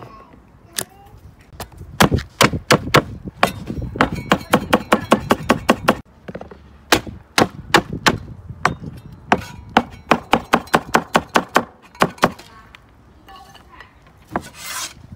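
Cleaver slicing green peppers into strips on a wooden cutting board: runs of sharp knocks on the board, several a second, with a short pause about six seconds in. Near the end the chopping stops and a few softer handling clicks follow.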